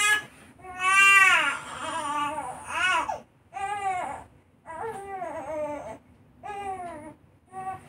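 Two-month-old baby crying in a string of wails, each a second or less, with short catches of breath between them. The longest and loudest wail comes about a second in.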